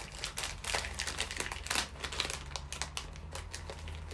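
Clear plastic packaging crinkling as it is handled, a run of irregular light crackles.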